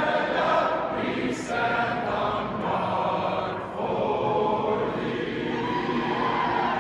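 A large arena crowd singing a national anthem together, many voices at once.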